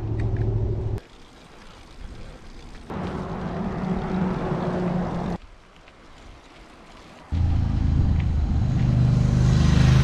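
Motor vehicle engines passing on a mountain road, heard in short stretches that start and stop abruptly. About seven seconds in, a motorcycle engine comes in loud, its pitch shifting as it approaches.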